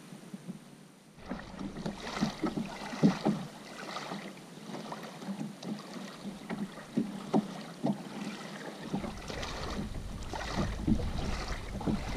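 Small waves lapping and splashing irregularly at the water's edge, with wind buffeting the microphone from about nine seconds in.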